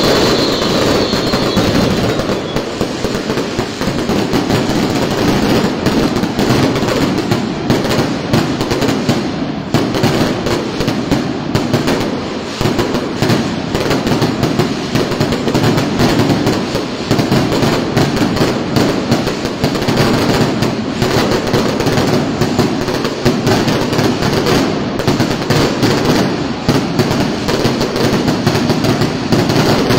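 Aerial fireworks bursting overhead in a dense, continuous run of bangs and crackling, with no let-up.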